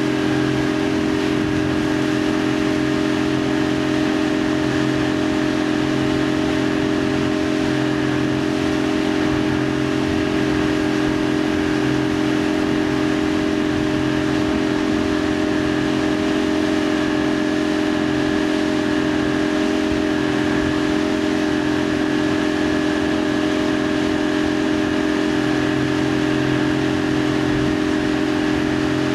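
Motorboat engine running at a steady towing speed, a constant drone with a hiss of water and wind.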